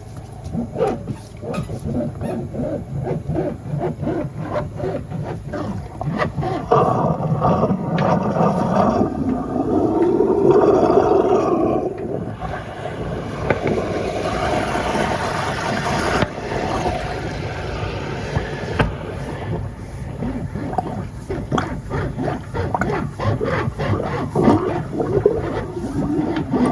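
Water gurgling and sloshing through a kitchen drain pipe, with many irregular knocks and a low gurgling tone that rises and falls about eight to eleven seconds in.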